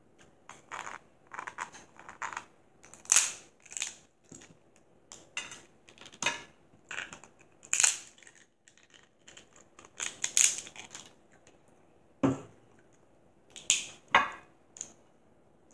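Dungeness crab shell cracking and crunching under a metal crab tool. It comes as a string of irregular sharp cracks, the loudest about 3, 8 and 10 seconds in, with a duller thump about 12 seconds in.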